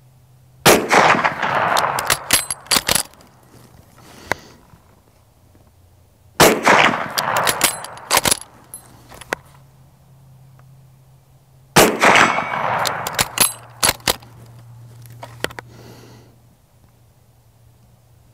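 Three rifle shots from a Mauser Model 71/84 11mm bolt-action rifle, about five and a half seconds apart. Each shot has a long echo rolling off the range and is followed by a few sharp metallic clicks as the bolt is worked.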